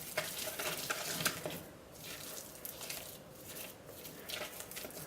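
Spatula stirring and scraping thick hot-process soap paste in a container, which is stiffening fast: irregular soft squishes and light clicks.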